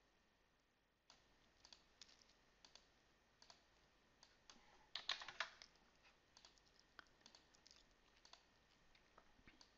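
Faint computer keyboard keystrokes and mouse clicks: scattered single clicks, with a quick run of several keystrokes about five seconds in.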